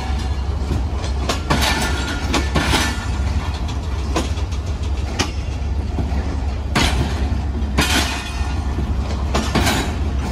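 Coupled passenger coaches of a Pakistan Railways train rolling slowly past on the platform track: wheels clacking over rail joints in sharp knocks about once a second, some in close pairs, over a steady low rumble.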